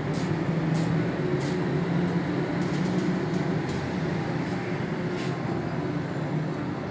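Steady low rumble of background noise, with a few faint short ticks scattered through it.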